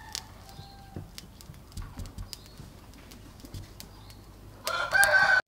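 Small sharp clicks and crunches as bamboo skewers are pushed through raw shallots. Near the end a loud chicken call breaks in and cuts off abruptly.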